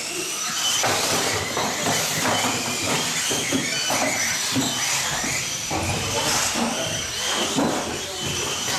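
Several small-scale electric RC off-road cars racing on a carpet track: thin, high motor whines over a steady rushing noise.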